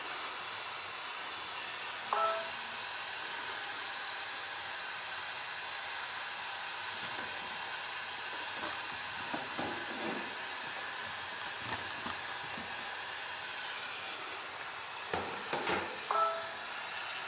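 Temperature-controlled heat gun blowing steadily with a hiss and a faint whine while it softens a phone screen's adhesive. Two short beeps come, one about two seconds in and one near the end, and a few light clicks fall in the second half.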